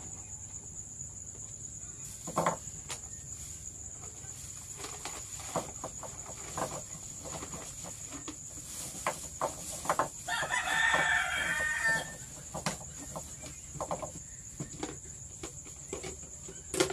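A rooster crowing once, about two seconds long, around ten seconds in, over a steady high chirring of crickets. Scattered small clicks and knocks throughout.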